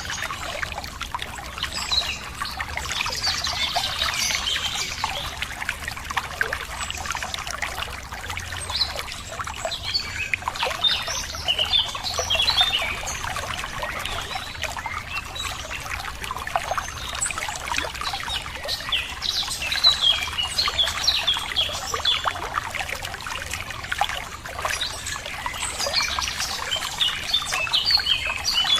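Running water trickling steadily, with small birds chirping on and off in several short spells.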